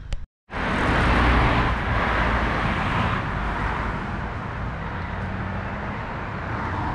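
Road traffic on a highway: a vehicle goes past close by, tyre and engine noise swelling over the first couple of seconds and easing off, then steady traffic hiss.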